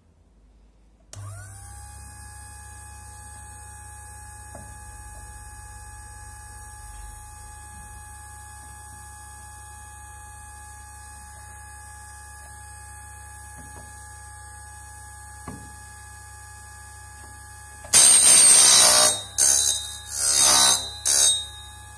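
An Optimum GQ-D13 drill bit sharpener's electric motor switches on about a second in, spins up and runs with a steady hum and whine. Near the end comes loud grinding in several bursts as the drill bit, held in its chuck, is turned against the grinding wheel.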